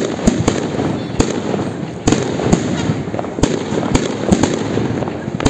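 Fireworks display: aerial shells bursting overhead with irregular sharp bangs, roughly two a second, over continuous crackling.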